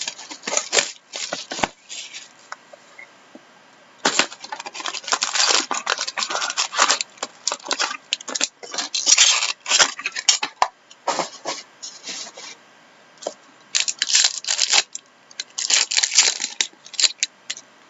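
Hockey trading cards being handled and sorted: crisp sliding and rustling of card stock in bursts of a second or two, with short pauses between.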